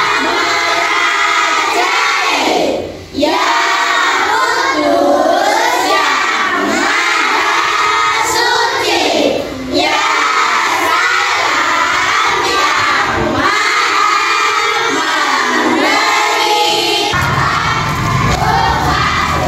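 A class of children chanting aloud together in unison from printed sheets, with short breaks between lines. Near the end a low rumble comes in under the voices.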